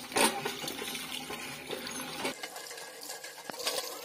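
Water gushing from a hand pump's spout and splashing onto a concrete apron as a man washes under it, with one sharp knock just after the start. A little over two seconds in it changes abruptly to a lighter, thinner splashing.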